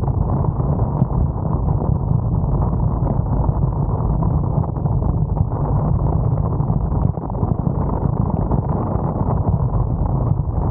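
Steady wind buffeting a camera microphone as it moves fast over choppy sea, a deep continuous rumble with water rushing beneath, dipping briefly about seven seconds in.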